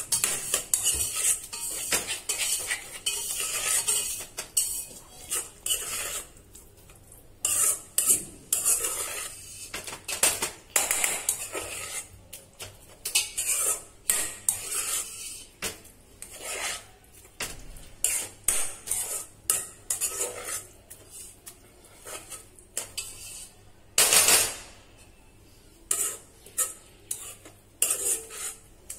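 A spatula scraping and stirring a thick tomato and curd masala around a non-stick kadai in quick, uneven strokes. The stirring is kept up without a break so the curd does not split.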